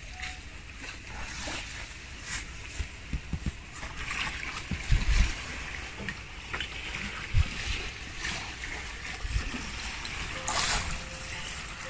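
Sea waves washing on a sandy beach, with a few low thumps on the microphone.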